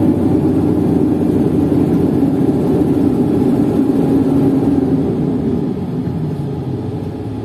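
Diesel engine of a Sany STC800S 80-tonne mobile crane running under load as the crane climbs an incline, heard inside the cab: a steady low drone that eases off slightly about five seconds in.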